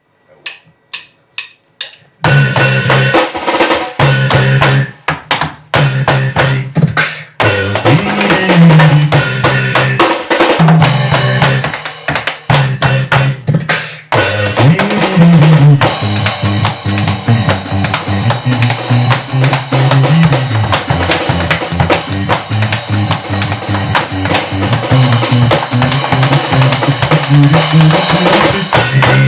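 Live drum kit, tap dance and beatbox playing together as a band. Four short clicks count in over the first two seconds, then drums and a low bass line come in, with several brief stops before the playing runs on unbroken from about halfway through.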